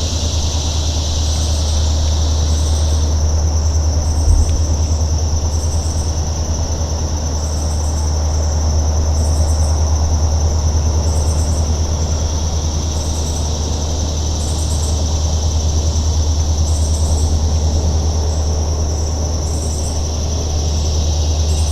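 Outdoor ambience: a steady low rumble, with a continuous high-pitched insect-like drone and short high chirps repeating about every second and a half.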